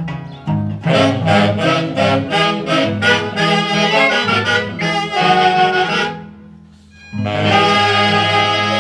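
Orquesta típica from Huancayo playing: quick accented notes over a low bass line, a drop of about a second around six seconds in, then a loud held chord.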